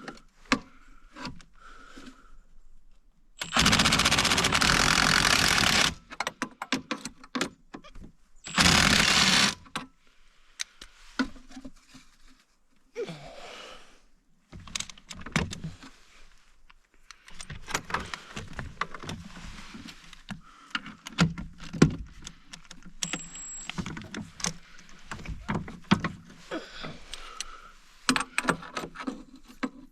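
Metal parts and tools knocking and clinking during disassembly work, broken by two loud, steady rushing bursts, one about three and a half seconds in lasting some two seconds and a shorter one about nine seconds in.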